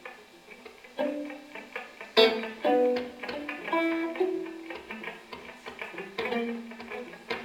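Electric guitar quartet playing sparse plucked notes that ring on and overlap, with a sharper, louder strike a little past two seconds in.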